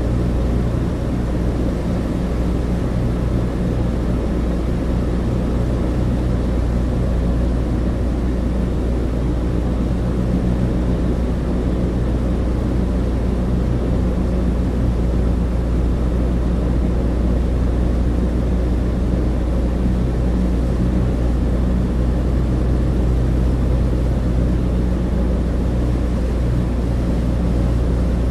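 Steady cabin drone inside a Douglas DC-3, from its two radial piston engines and propellers heard through the fuselage: a deep, even hum with several low steady tones under a rushing noise.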